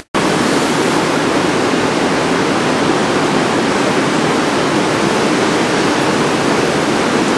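Steady, even rushing noise of a busy railway station platform beside a standing electric train, with no distinct tones or knocks. It cuts out for an instant right at the start.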